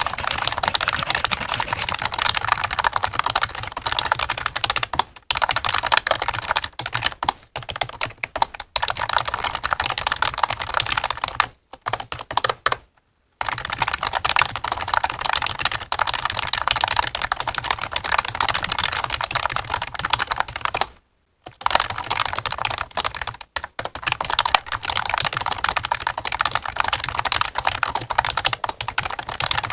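Fast typing on a computer keyboard, a dense stream of key clicks with a few short pauses between bursts.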